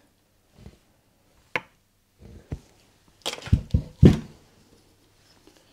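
Handling noise from a polished alloy engine cover being held and moved by hand: a sharp click, a couple of soft knocks, then a cluster of louder knocks about three to four seconds in.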